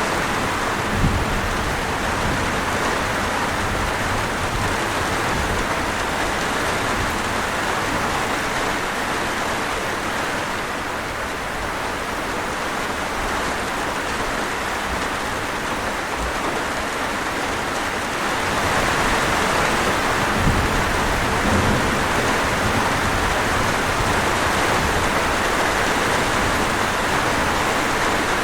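Steady rain falling, growing louder and heavier about two-thirds of the way through, with a couple of brief low thumps.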